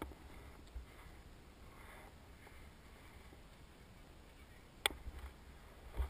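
Quiet wind rumble on the microphone on an open snow slope, broken by two sharp clicks near the end, about a second apart.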